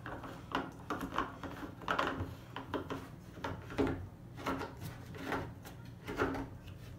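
Hard plastic clicking and knocking, irregular and light, as a yellow plastic screw-knob is turned into the plastic frame of a toy slide's basketball hoop stand.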